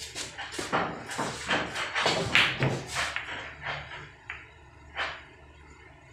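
Pool balls being shot: a cue strike followed by a quick run of ball-on-ball clicks and knocks against the rails over the first three seconds or so, then two single knocks a second apart.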